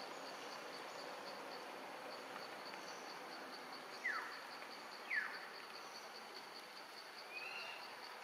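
Outdoor ambience of an insect chirping steadily, about four pulses a second, over a faint hiss. Two brief falling calls come about four and five seconds in, and a short rising call comes near the end.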